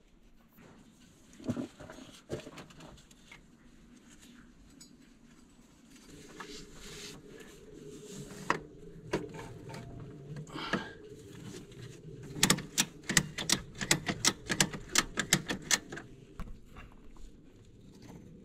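Ratchet wrench clicking in quick runs of about six clicks a second, loudest a little past the middle, while working the bolts of a truck's alternator. Scattered knocks and scrapes of tools on metal before it.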